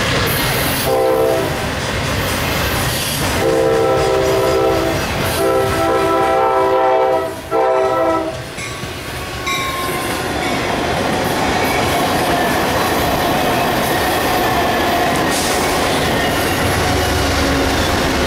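A locomotive air horn sounds four multi-note blasts, two of them long and the last short, over the rumble of passing trains. After the horn, a passenger train rolls past, with a locomotive's low engine rumble building near the end.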